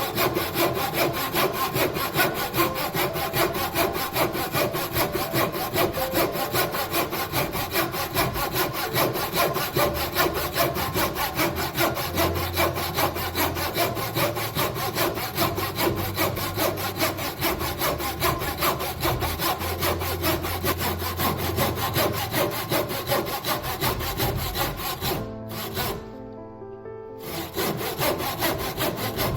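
A saw cutting through wood in fast, steady back-and-forth strokes, typical of cutting a dovetail joint. It stops for about two seconds near the end, then starts again.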